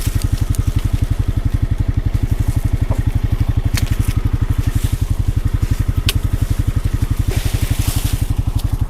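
Honda Pioneer 520 UTV's single-cylinder engine idling with an even, rapid pulse. Scattered clicks and a rustle sound over it, strongest about seven to eight seconds in.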